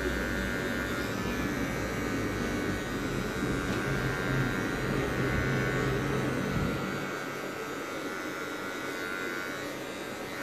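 Wahl hair clipper running with a steady electric buzz as it cuts a fade on short hair. The deeper part of the hum falls away about seven seconds in.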